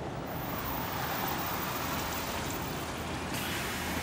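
Nissan Diesel Space Runner city bus pulling in alongside at low speed, its engine running and its tyres hissing on wet pavement. A brighter hiss rises near the end as it draws up.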